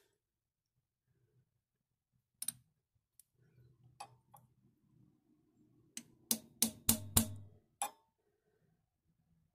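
A hammer tapping a tubular seal driver to seat a new crankshaft seal into the case of a Polaris 488 two-stroke engine: a few scattered light taps, then five firmer taps at about three a second and a last one.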